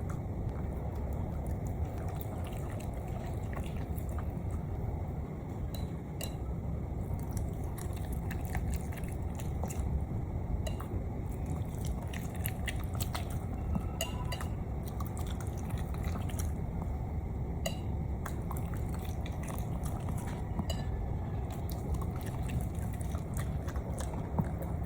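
A dog eating wet fresh food from a bowl: chewing and smacking, with many short scattered clicks.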